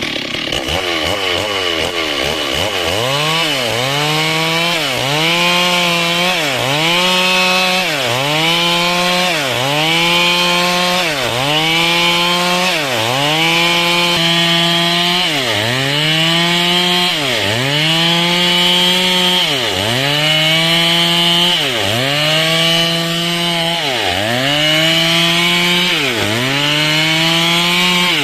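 Stihl chainsaw cutting through dry wood under load, its engine pitch sagging and recovering in a steady rhythm about every second and a half as the bar is worked through the cut.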